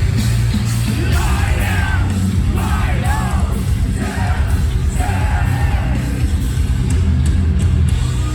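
A live metalcore band playing loud, heavy music with a very strong low end and fast, pounding drums, with yelled and sung vocals over it from about a second in.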